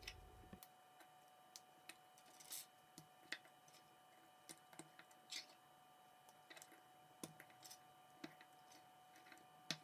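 Faint, irregular clicks and taps of plastic K'NEX rods and connectors being snapped together and set down on a tabletop, with the sharpest click near the end. A faint steady hum runs underneath.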